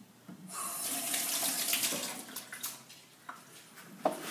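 Kitchen tap running into the sink while hands are washed under it, stopping about three seconds in. A short knock follows near the end.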